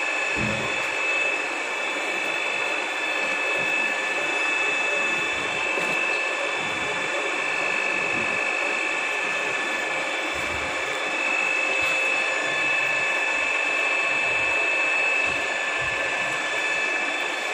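Radial drill machine turning a boring bar through an excavator bucket's pin bores during line boring: a steady mechanical running noise with a high whine of a few held pitches.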